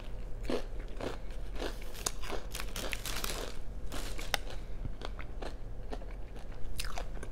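Close-up chewing of crunchy food: a run of sharp, irregular crunches and bites.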